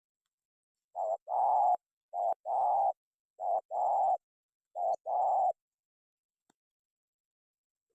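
Spotted dove cooing: four calls about a second apart, each a short coo followed by a longer, held coo.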